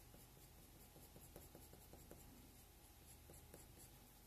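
Faint scratching of a coloured pencil on drawing paper, in short light strokes.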